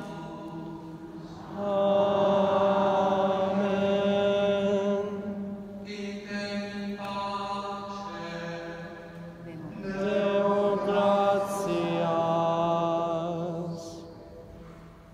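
Sung plainchant: slow phrases of long held notes, loudest in two swells about two and ten seconds in, fading out near the end.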